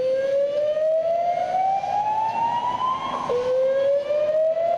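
Hotel fire alarm system sounding its early-alert tone: a slow whoop that rises steadily in pitch for about three seconds, drops back abruptly about three seconds in, and starts rising again.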